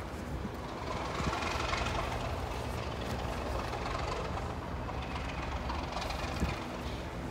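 Diesel locomotive engine running steadily at idle, a low even drone with a light background rumble.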